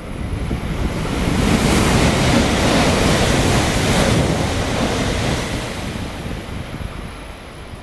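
JR East E4 series double-deck Shinkansen running through a station at speed: a steady rush of air and wheel noise that swells about a second in, holds for several seconds as the train passes, then fades near the end.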